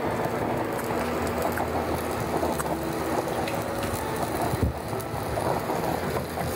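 Steady hiss and low hum of sweet-and-sour sauce simmering in a skillet on a gas burner, with light scrapes of a wooden spatula stirring it as it reduces.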